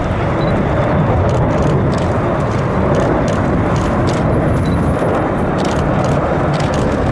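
Steady, loud rumble of an Airbus A380-861's four Engine Alliance GP7200 turbofans at taxi power as the airliner rolls past.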